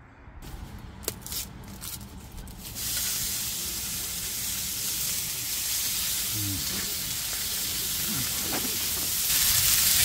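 Slices of pork belly sizzling on a hot round grill pan over a camp stove: a steady frying hiss that starts about three seconds in, after a few sharp clicks, and gets louder near the end as more meat goes on.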